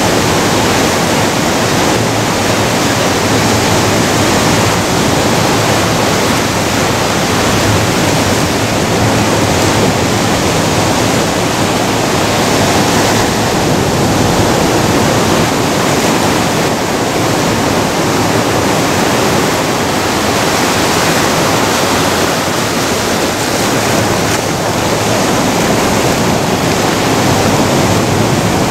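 Ocean surf breaking and washing up over a rocky sand beach: a loud, steady rush of waves.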